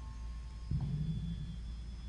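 Steady low hum, with a faint low-pitched murmur lasting under a second that begins less than a second in.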